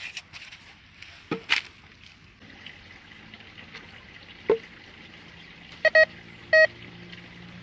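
Metal detector giving three short electronic beeps about six seconds in, two close together and then one more: its signal that the search coil has passed over metal. Before them, a few sharp knocks.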